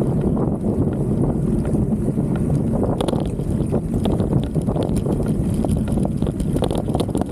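Wind rushing over a handlebar-mounted action camera's microphone on a mountain bike riding rough dirt trail, with steady rattling and knocking from the loose camera mount.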